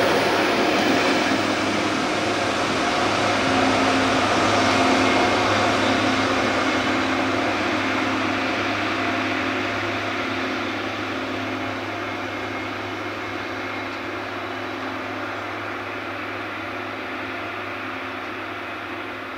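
Plasser & Theurer track tamping machine running along the rails and moving away, its steady diesel engine drone slowly fading.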